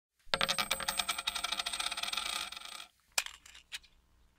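Intro sound effect of rapid metallic clinking, like coins pouring out, lasting about two and a half seconds, followed by a few separate clicks.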